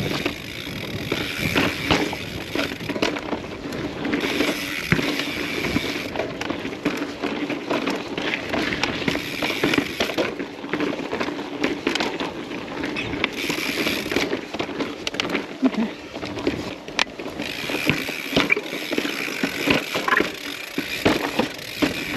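Mountain bike ridden over rough slickrock: tyres rolling and the bike's chain and frame rattling, with many sharp knocks as it hits rock ledges.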